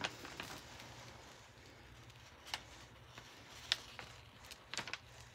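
A few faint, short crackles and rustles of a diamond-painting canvas and its plastic protective film being handled and smoothed on a tabletop, over a faint low hum.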